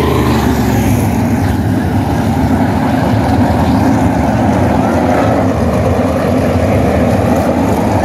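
A field of 700-horsepower winged sprint cars racing on a dirt oval, their V8 engines blending into a loud, steady drone.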